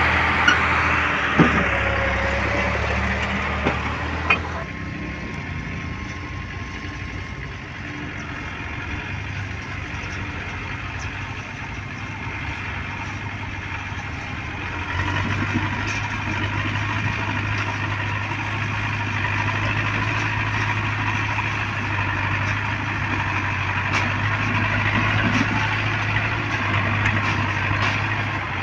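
Diesel farm tractor engine running steadily as it hauls a heavily loaded sugarcane trolley, a continuous low drone. A few sharp clicks come in the first few seconds, the drone fades after about four seconds, then grows louder again about halfway through as a tractor approaches.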